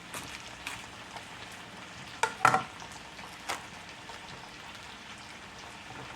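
Potatoes frying in a cast-iron skillet, a steady sizzle. Over it come a few sharp knife knocks and crunches as the core is cut out of a cabbage, the loudest about two and a half seconds in.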